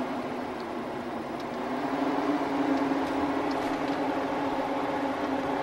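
A 16-inch electric dog-crate fan running, a steady hum with a rush of air. Its level rises slightly about two seconds in and then holds steady.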